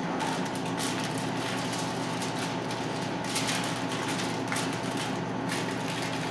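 Aluminium foil crinkling in short, irregular bursts as a laulau bundle is wrapped and folded by hand, over a steady mechanical hum.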